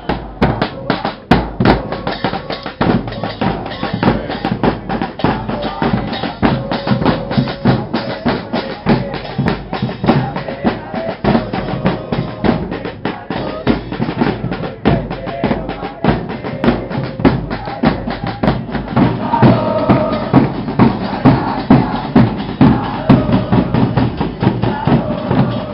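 Bass drums and snare drums beating a fast, steady rhythm, starting abruptly, the drum section of a football supporters' march.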